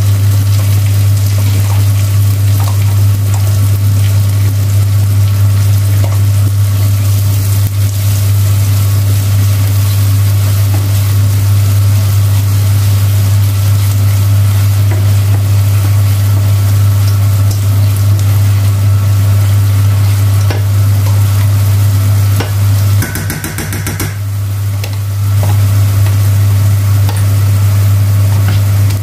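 Onions and garlic sizzling in butter in a stainless steel frying pan as cream is stirred in, the spoon scraping the pan. Under it runs a loud steady low hum that dips briefly near the end.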